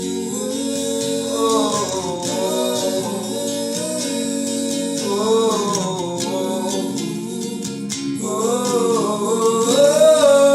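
A song: a singing voice holding long notes that bend in pitch, in three phrases, over acoustic guitar.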